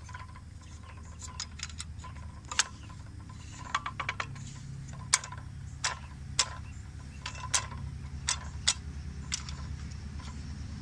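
Scattered light clicks and taps at irregular intervals, from the cordless circular saw being handled and set up, over a low steady hum.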